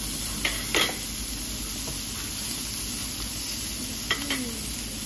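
Pork belly sizzling on a tabletop grill, a steady hiss. Metal tongs click against the grill a couple of times, about half a second in and again near the end.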